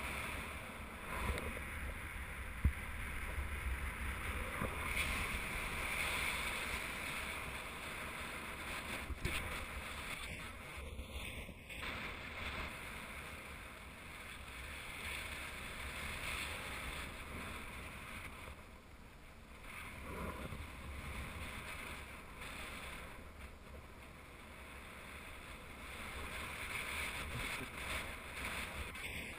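Wind rushing over the camera microphone during a paraglider flight: a steady hiss with low buffeting rumble that swells and eases. A couple of sharp ticks stand out in the first few seconds.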